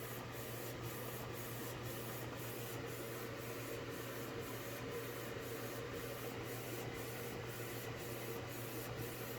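Canon inkjet printer printing a photo: a quiet, steady swishing whir with a faint regular pulse about twice a second over a low hum.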